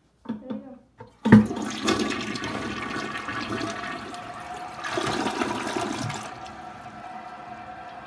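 Toilet flushing: a sharp start about a second in, then water rushing down the bowl, surging again around five seconds in before dropping to the quieter hiss of the tank refilling, with a steady tone from the refill valve.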